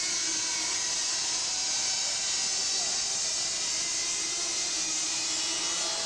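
Eight Cox Tee Dee .010 miniature glow engines running together at high revs, a steady high-pitched whine.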